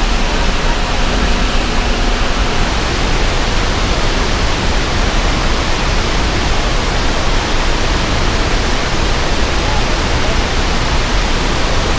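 Dam spillway discharge: a loud, steady rush of falling and churning water with a deep rumble underneath.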